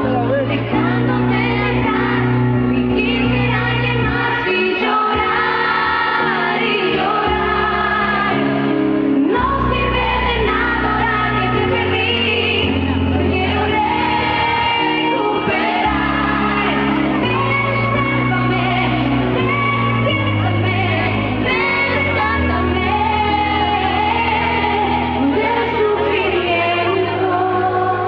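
Live band music with a woman singing the lead vocal in Spanish, heard from within the audience, with a steady bass line under the voice.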